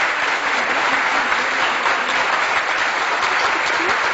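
A crowd applauding: dense, steady clapping.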